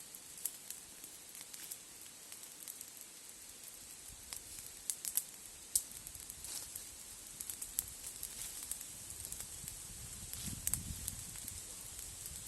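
Campfire crackling: irregular sharp pops and snaps from burning wood.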